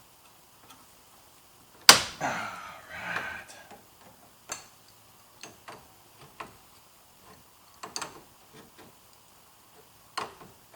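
Hand tools and small parts being handled: a sharp click, then a second or so of rattling and rustling, followed by scattered light clicks and taps.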